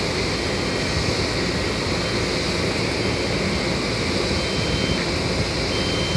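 Heavy truck's diesel engine running steadily as it reverses a long multi-axle lowboy trailer at walking pace. In the second half a faint high reversing beep sounds at intervals of about a second and a half.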